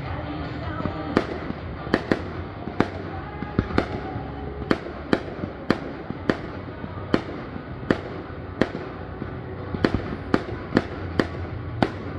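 Fireworks going off in a rapid series of sharp bangs, about two a second, each with a short echoing tail.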